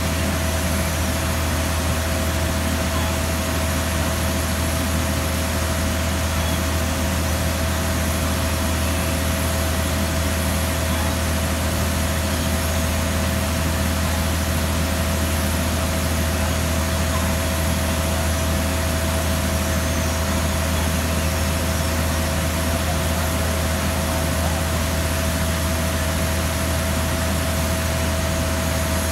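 Heavy airport ground equipment running steadily, most likely the cargo container loader's engine as it moves a container into the aircraft hold: an even low drone with a hiss and a constant high whine over it.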